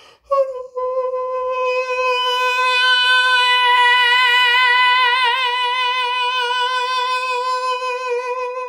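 A man singing one long, unbroken high note in full voice at a steady pitch. It swells smoothly from soft to loud and back down, with a vibrato near the loudest point.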